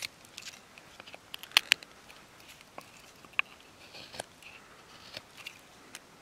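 Bushcraft knife carving a notch into a dry wooden stick: a scatter of sharp little snaps and clicks as the blade bites and shaves the wood, with a faint scraping between cuts. The loudest are two quick snaps about one and a half seconds in and another near the middle.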